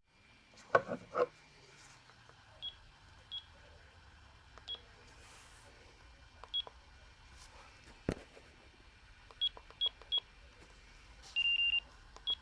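Sagem my101X mobile phone keypad beeping: short high single beeps at irregular intervals as keys are pressed, then a quicker run of three and a longer, slightly lower beep near the end. A few loud knocks from handling the phone about a second in, and a sharp click later.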